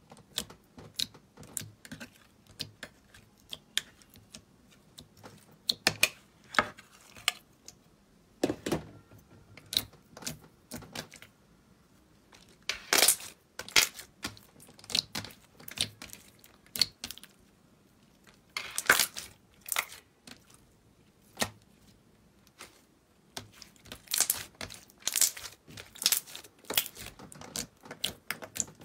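Hands poking, pressing and stretching a sticky yellow slime: irregular wet pops, snaps and crackles, with louder bunches near the middle and toward the end.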